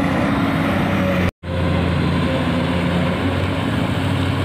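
Komatsu PC200 amphibious excavator's diesel engine running steadily with a low hum while the arm works, with a brief total dropout in the sound about a second in.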